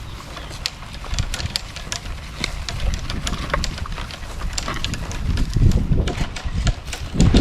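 Low wind rumble on the microphone with many scattered sharp clicks and rattles, growing louder in the last couple of seconds.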